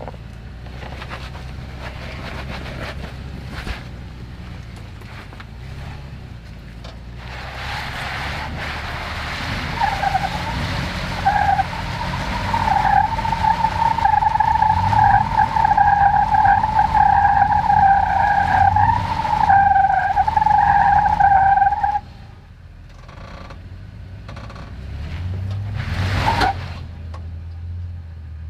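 Toyota 4Runner's engine working low under load on a rocky climb, with tires scrubbing and squealing against the rock for about fifteen seconds from about seven seconds in, stopping abruptly; a short loud scrape follows near the end.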